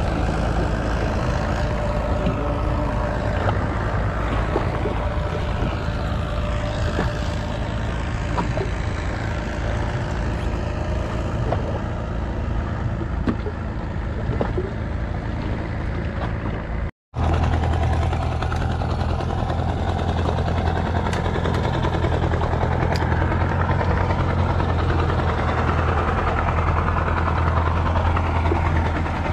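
Engine running steadily at a constant low hum. It breaks off for an instant about two-thirds of the way through and resumes with a stronger low drone.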